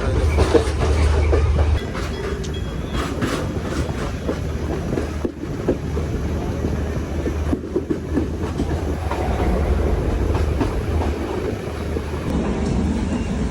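Moving passenger train heard from inside the coaches: steady running rumble with wheels clattering over the rail joints, louder for the first couple of seconds and then steadier.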